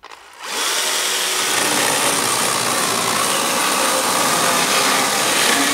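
Corded Makita electric chainsaw, rebuilt to run on 24 V, starts about half a second in and runs steadily under load as its chain cuts through a dry wooden beam.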